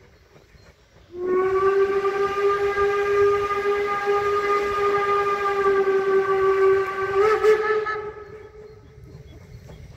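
Narrow-gauge steam locomotive's whistle sounding one long blast of about seven seconds, starting about a second in. It holds steady, rises briefly near the end, then fades out.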